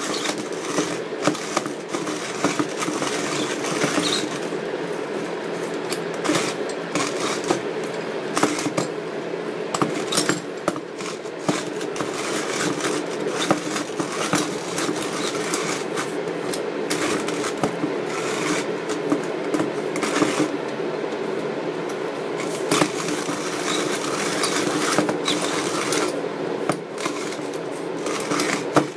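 Zassenhaus hand coffee mill being cranked steadily, its burrs crunching through medium-light roast coffee beans at the finest grind setting: a continuous grinding rasp dotted with sharp cracks as beans break.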